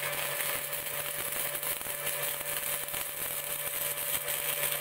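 Stick-welding arc from a 1/16-inch 6013 electrode running one continuous bead on thin sheet metal: a steady crackle and sizzle over a low hum.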